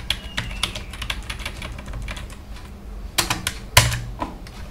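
Computer keyboard typing: irregular keystroke clicks, with a quicker, louder run of keys a little past three seconds in.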